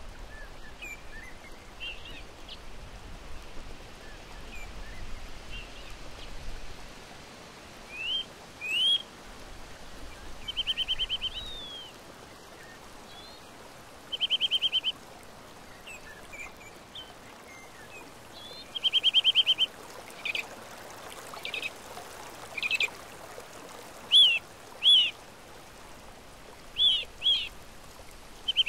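Birds calling over a steady rush of flowing river water: short rapid trills about a second long, repeated several times, and brief sharp sliding calls in between.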